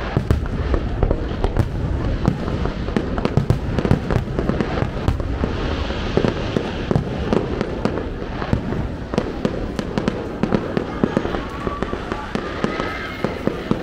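Fireworks display: aerial shells bursting in a rapid, continuous string of bangs.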